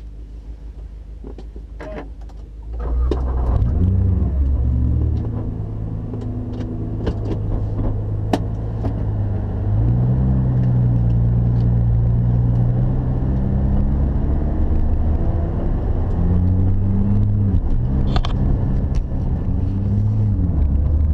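Nissan GT-R R35's twin-turbo V6 heard from inside the cabin. It runs quietly, then about three seconds in it is revved and held at steady revs on launch control. About ten seconds in the car launches and accelerates hard, the engine pitch rising and falling.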